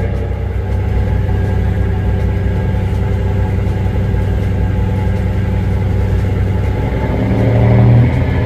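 Ferry's propulsion machinery running with a steady low hum, swelling louder about seven seconds in and easing off again just before the end.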